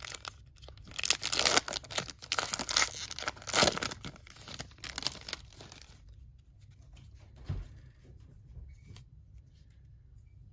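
Foil wrapper of a baseball card pack being torn open and crinkled by hand, a dense crackling rustle that stops about six seconds in, leaving only a few faint soft taps.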